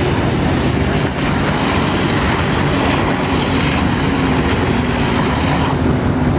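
Personal watercraft engine running steadily to drive a flyboard's water jet, with water rush and wind on the microphone.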